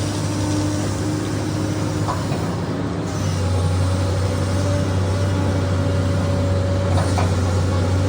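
SANY excavator's diesel engine running with a steady hum, getting somewhat louder and heavier from about three seconds in.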